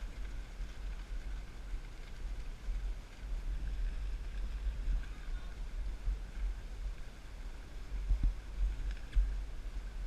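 Wind buffeting the microphone: a low, uneven rumble with no clear rhythm.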